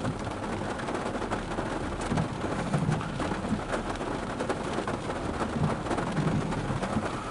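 Heavy rain drumming on a vehicle's roof and windows, heard from inside the cab: a steady patter of many small drop ticks over a low rumble.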